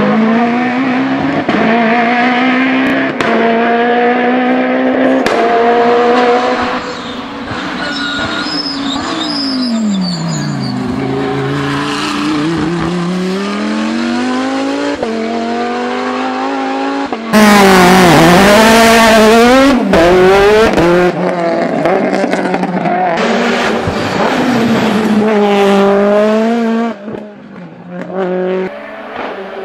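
Hillclimb race car engines revving hard under full throttle, with the pitch climbing and falling as they shift up through the gears and drop back under braking, over a run of cuts between different cars. About two-thirds through comes a much louder, harsher stretch of a few seconds.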